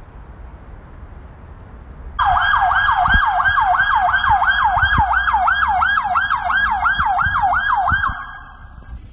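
Police car siren in a fast yelp, the pitch sweeping up and down about three times a second. It starts suddenly about two seconds in and stops about a second before the end, over a low vehicle rumble.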